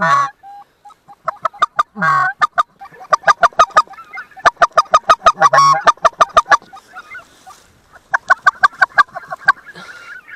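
Geese calling: rapid runs of short, high honks and cackles, thickest in the middle, with a brief lull before a second run near the end.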